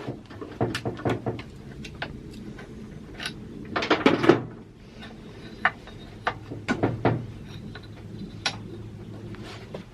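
Scattered clicks and knocks of hand tools and small chainsaw parts being handled during a teardown, loudest in a cluster about four seconds in and again around seven seconds.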